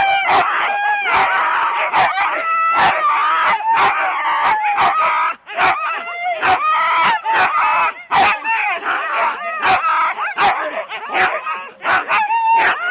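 Siberian huskies barking and whining excitedly, many at once: overlapping high-pitched calls and sharp yelps with no break. It is the pre-start clamour of a sled dog team held back on the line, eager to run.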